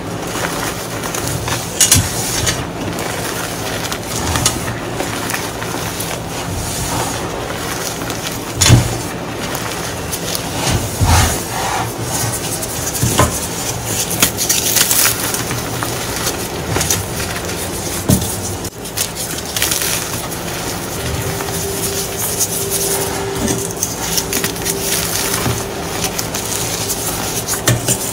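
Hands crushing and crumbling blocks of reformed gym chalk into loose powder: continuous soft crunching and rustling of the chalk, broken by a few sharper cracks as pieces snap.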